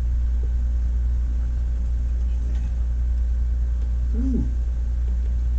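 A steady, loud low electrical hum, with a brief low vocal sound about four seconds in.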